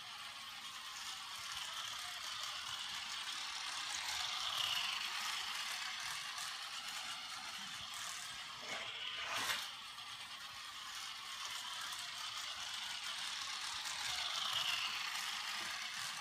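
Small battery-powered toy race car whirring and rattling along a plastic track, growing louder as it passes close about four seconds in and again near the end. There is a sharp knock about nine seconds in.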